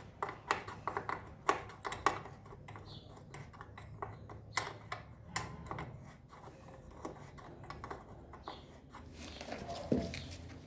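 Irregular small metallic clicks and taps of hand tools working at a motorcycle's rear wheel while the chain is being tensioned, with a low steady hum underneath.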